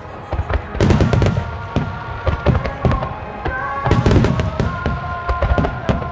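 Fireworks display: many shells bursting in quick succession, booming and crackling, with the bursts bunched about a second in and again about four seconds in. Music with long held notes plays underneath.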